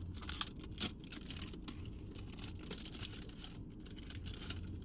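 Plastic packaging crinkling and tearing in quick irregular rustles as a blind-box squishy toy package is opened.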